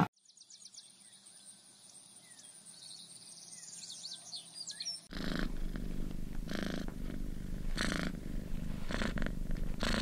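Faint birdsong of high chirps and short whistles. About five seconds in it gives way to a cat purring, louder and steady, swelling in slow breaths about once a second.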